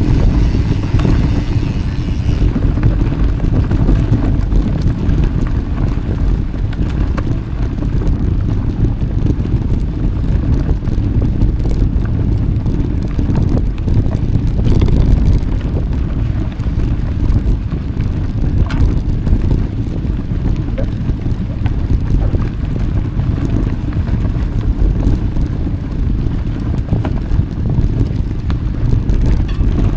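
Wind rushing over the microphone while riding a mountain bike: a steady, loud low rush with no let-up.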